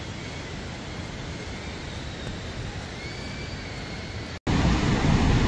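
Steady outdoor rushing noise with a faint high whine that wavers and rises a little midway. Near the end it cuts abruptly to a louder, deeper rush.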